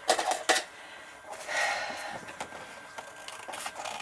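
Paper cards and album pages being handled and slid about: a few light taps, then a rustle of paper about a second and a half in, with scattered small ticks.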